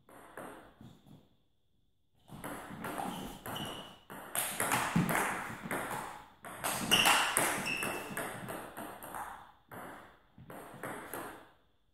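Table tennis ball being struck by rackets and bouncing on the table in a fast rally of sharp, ringing clicks. The rally starts about two seconds in and stops about seven seconds later, followed by a few slower bounces near the end.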